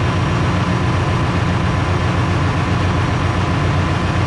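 Ship's engine-room machinery running steadily: a loud, even low drone with a faint steady whine above it.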